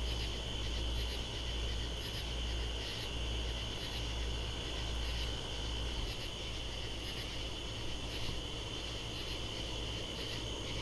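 Night chorus of katydids: a steady high-pitched drone with short, rhythmic calls about once a second, over a steady low hum.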